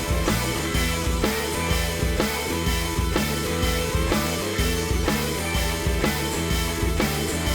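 Music with a steady drum beat, bass and guitar.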